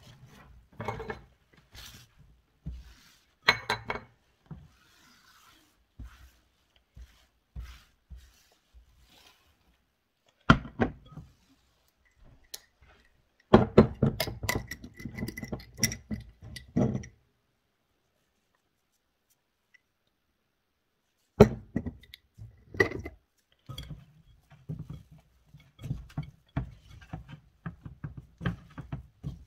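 Cutlery clinking and scraping against a ceramic mixing bowl as dough is stirred, in scattered knocks and a busier run of clinks with a faint ring; it breaks off for a few seconds in the middle. Near the end, softer dull thuds of dough being kneaded by hand in the bowl.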